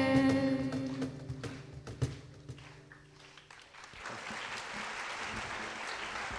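The last held note of a song and its accompaniment die away, then an audience starts applauding about four seconds in.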